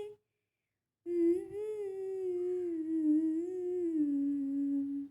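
A woman humming a slow melody without accompaniment. About a second in, after a brief cut-out, she holds one long wavering phrase that sinks lower in pitch near the end.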